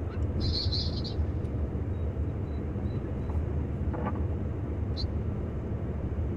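Steady low rumble of a car's engine and tyres heard from inside the cabin while driving on a snow-covered road. A short higher-pitched sound comes about half a second in, and a faint tick near the end.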